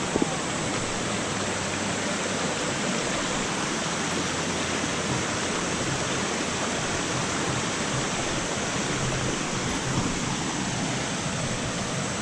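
Shallow mountain stream rushing over rocks at close range: a steady, even rush of water.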